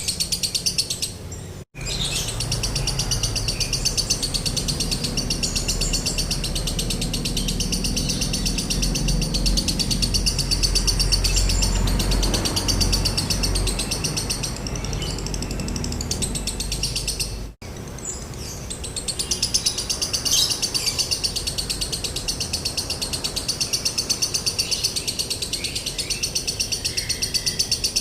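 A lovebird's long, very fast chattering trill (ngekek) in the continuous 'konslet' style, with a dry tone, broken by two very short gaps, about 2 seconds in and about 18 seconds in.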